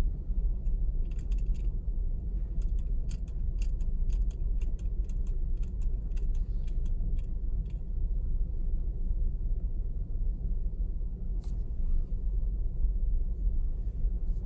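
Low road and tyre rumble heard inside a 2018 Subaru Outback's cabin on a rough, potholed asphalt road. Keys jangle in a flurry of sharp clicks during the first half, with another near the end. The owner says the keys partly mask a clunk he hears from around the driver's side front wheel.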